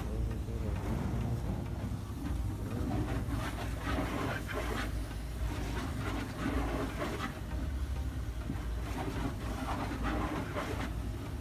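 Pressure washer jet spraying water onto a car's wheel and tyre, over a steady low hum from the washer's pump.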